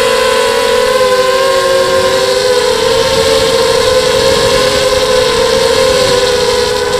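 Racing quadcopter's electric motors and propellers whining in flight: several close pitches weave up and down against each other as the throttle shifts.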